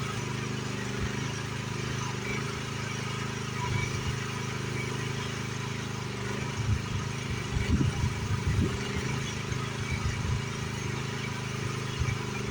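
Excavator engine running steadily. About halfway through come irregular knocks and bangs as the bucket works against the shed's rotten siding.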